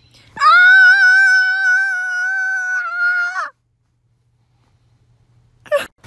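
A single long, high-pitched cry held at one steady pitch for about three seconds, then stopping abruptly; a brief squeak near the end.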